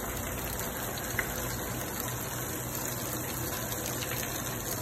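Thin streams of water pouring steadily from the outlet tubes of a water supply pipe and splashing down into a wooden trough, a continuous rush of falling water.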